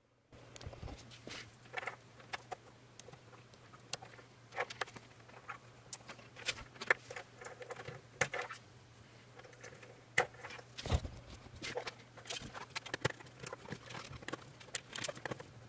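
Hands handling insulated wires, lever-type wire connectors and a screwdriver: irregular clicks, taps and rustling, with a faint steady low hum underneath.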